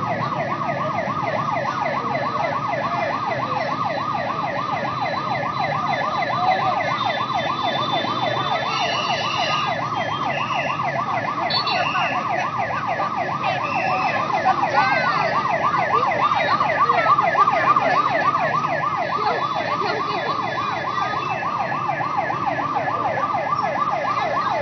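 Fire engine siren sounding a rapid yelp, its pitch sweeping up and down about four to five times a second without a break.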